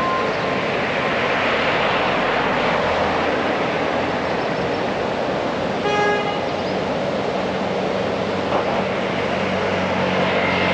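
Steady street traffic noise, with one short vehicle horn toot about six seconds in and a low engine hum in the last few seconds.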